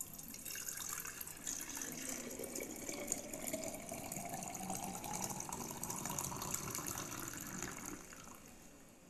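A drink poured in a steady stream into a glass mason-jar mug, splashing, with a tone that rises in pitch as the jar fills. The pouring stops about a second before the end.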